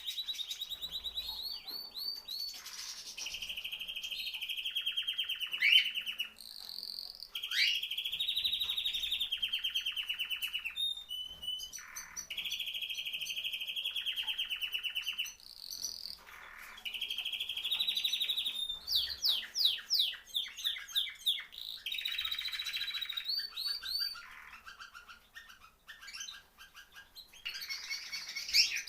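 A songbird singing a long song of rapid trills and rolls, phrase after phrase with short breaks between them.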